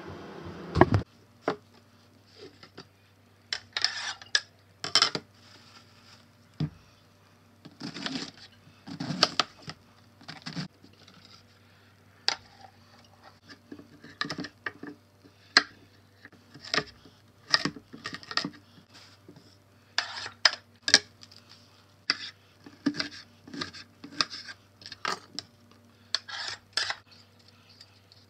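Chef's knife chopping carrot and potato on a wooden cutting board: sharp, irregular knocks of the blade on the board, with a vegetable peeler scraping potato skin near the end. A low, steady hum runs underneath.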